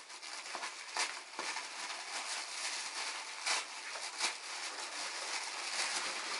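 Box packaging being handled and opened: continuous rustling and crinkling, with a few sharp clicks and taps.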